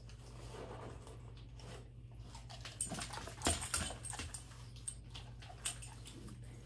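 A dog moving about close by: a cluster of soft knocks and scuffles around the middle and one sharp tick near the end.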